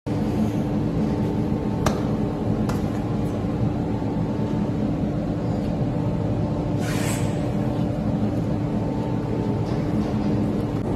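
Steady hum of running woodworking machinery, with a couple of light clicks and a short hiss about seven seconds in.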